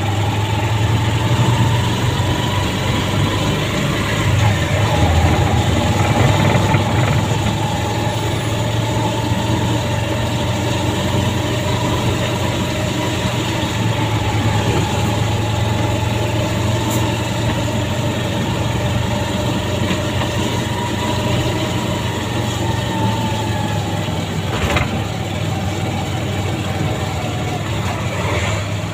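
Motorcycle engine of a tricycle running steadily on the move, heard from inside the sidecar: a low drone with a faint whine that rises and falls gently. There is one sharp knock near the end.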